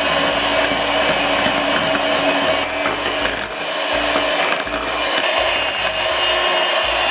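Electric hand mixer running at a steady speed, a constant motor whine as its beaters whip truffle cream and Nutella in a glass bowl.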